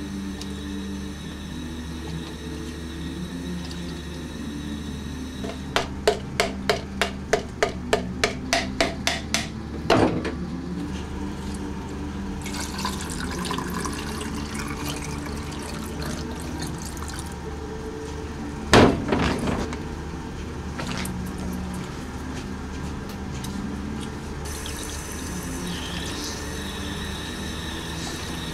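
Low, steady background music. About six seconds in there is a quick run of about a dozen sharp clicks, roughly three a second, ending in a single knock. Liquid is then poured and splashes into a container for a few seconds, followed by one loud knock just after the middle.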